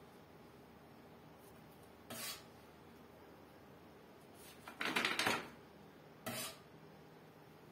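Metal spoon scraping against a steel pot and a foil tray as chocolate cream is scooped and spread: three short scrapes, the longest and loudest about five seconds in.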